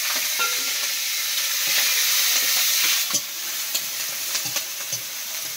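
Onion, green chilli and ginger-garlic paste sizzling in hot oil in a metal kadai, stirred with a metal spatula that clicks and scrapes against the pan. The sizzle eases a little about three seconds in.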